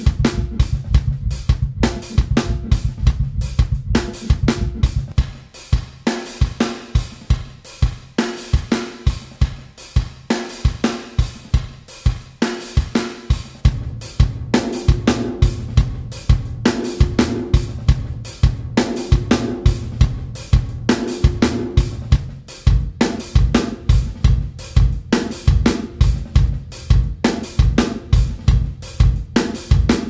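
A looped drum kit pattern (kick, snare, hi-hat and cymbals) playing through the D16 Group Spacerek reverb, its reverb character changing as presets are switched. At first the kick carries a long low tail; after about five seconds that low boom drops away, and in the middle stretch a ringing pitched tone hangs behind the hits.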